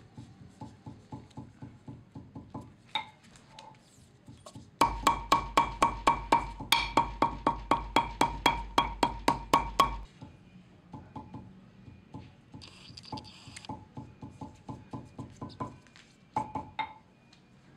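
A metal hand hammer tapping rapidly on folded sandal material laid on a marble slab, about four strikes a second, flattening the folds. The strikes are softer at first, loud and ringing through the middle stretch, then softer again.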